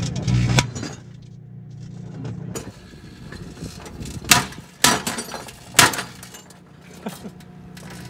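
Sharp pops of .22 rimfire cartridges going off inside a running microwave oven: three loud cracks about four, five and six seconds in, with a few fainter ones around them. A low microwave hum stops within the first second.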